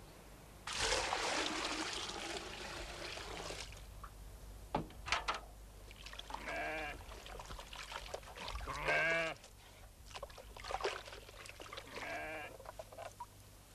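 Water is poured and splashed into a wooden tub for about three seconds, followed by a few knocks. An animal bleats three times in the background, each bleat short and wavering.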